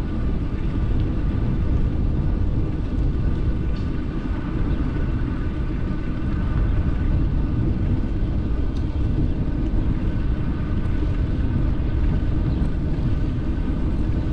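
Wind rumbling on the microphone of a riding e-bike, with steady tyre and drive noise and a faint, even high whine underneath.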